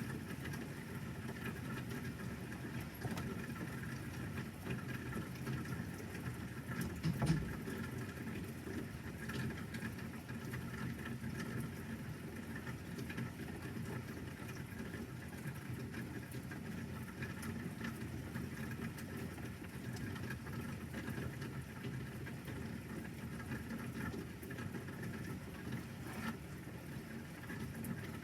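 Light rain pattering steadily, with one brief low thump about seven seconds in.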